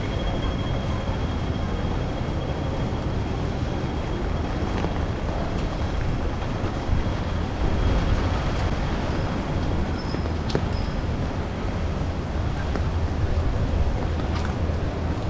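Strong typhoon wind buffeting the action camera's microphone, a steady churning low rumble over city street and traffic noise, with a few brief ticks.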